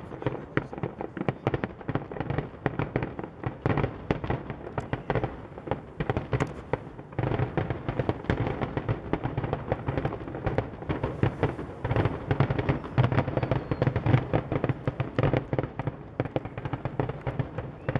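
Fireworks display: aerial shells bursting in a dense barrage, booms and crackling reports following one another with almost no gap, easing briefly about seven seconds in before picking up again.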